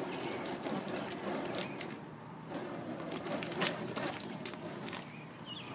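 Flaming nunchucks being spun: a steady rushing noise with scattered sharp clicks and taps.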